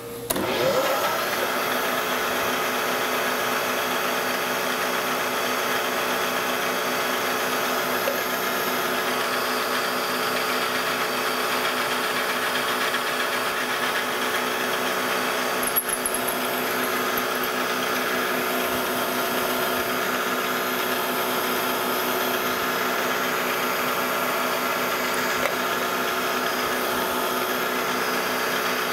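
Drill press running, its quarter-inch bit cutting steadily down through a metal block held in a vise. The motor rises in pitch as it comes up to speed at the start, then holds a steady hum.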